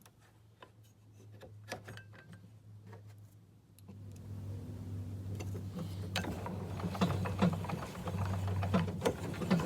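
Irregular clicking and clattering of tools and metal parts as a DeWalt 735X thickness planer is assembled, over a steady low hum that grows louder about four seconds in.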